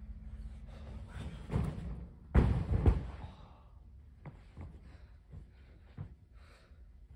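Bare feet running and taking off on a carpeted gymnastics spring floor, then a body crashing onto the floor from a failed double cork attempt: two heavy thuds about half a second apart are the loudest sounds. A few light knocks and footsteps follow as he gets back up.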